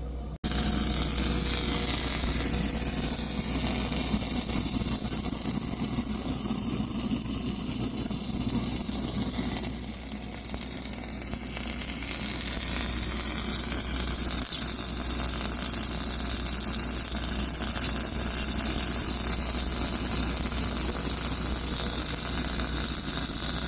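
Ventilation air blower running inside a large steel pipe: a loud, steady rush of air over a low hum, strong enough to drown out talk.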